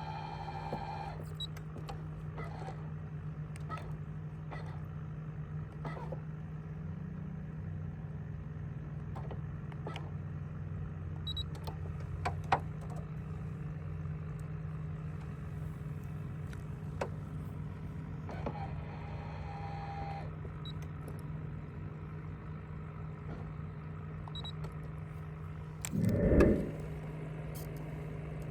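Boat motor running with a steady low hum, with scattered light clicks. A brief pitched tone sounds about two-thirds through, and a single loud thump comes near the end.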